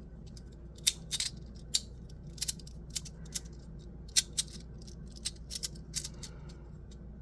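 3D-printed sliding magnetic fidget slider being worked by hand: its magnets snap the pieces together with sharp clicks, about a dozen at irregular spacing, some in quick pairs.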